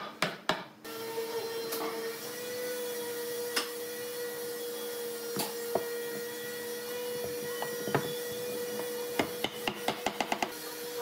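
Mallet knocking on pine boards to seat them together. There are a few quick taps at the start, single knocks scattered through the middle, and a fast run of about eight taps near the end. A steady machine hum starts about a second in and runs underneath.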